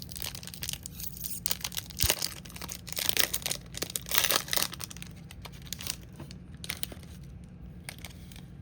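Baseball card pack wrapper being torn open and crinkled by hand, in irregular crackly bursts that are loudest in the middle and die down near the end.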